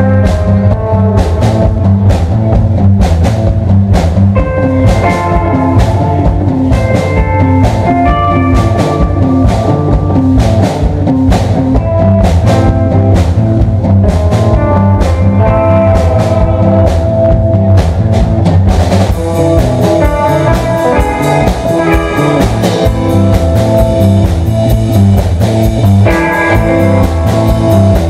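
Live rock band with electric guitar and drum kit playing loud and without singing, over a steady drumbeat. About two-thirds of the way through, the drummer shifts to continuous cymbal playing.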